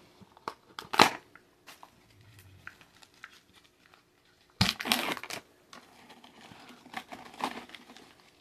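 Pringles can being opened, its plastic lid and peel-off foil seal handled: sharp clicks, then a crinkling, tearing stretch about four and a half seconds in, and more crinkling near the end.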